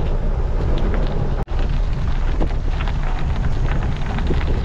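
Wind buffeting the microphone while a Canyon Grail gravel bike rolls downhill over a gravel trail, its tyres and frame rattling with many small clicks and knocks. The sound drops out for an instant about a second and a half in.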